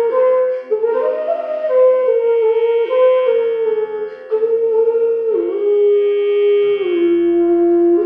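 Background instrumental music: a slow melody of held notes, some sliding from one pitch to the next, over a steady drone.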